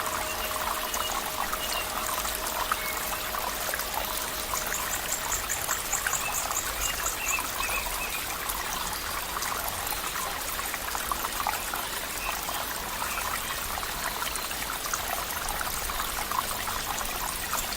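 Shallow stream water trickling and bubbling steadily.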